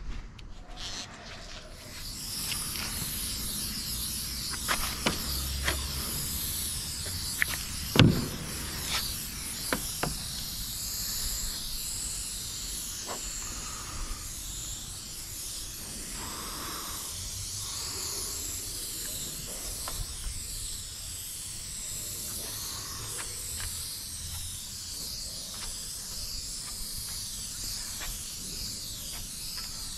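Aerosol spray paint can spraying in a long, steady hiss that starts about two seconds in. A few sharp clicks and knocks come between about five and ten seconds, the loudest near eight seconds.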